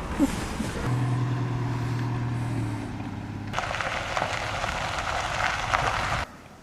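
A motor running with a steady hum, then a crackling rushing noise from about three and a half seconds in that cuts off suddenly near the end.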